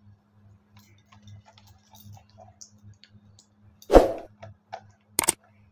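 Plastic puppy-house coin bank handled: faint light ticks and clicks, then a loud thump about four seconds in and a short sharp click about a second later.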